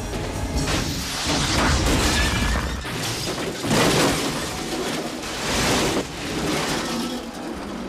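A shoulder-fired rocket launched at a car and exploding, followed by repeated loud crashing and smashing in several waves as the burning car overturns.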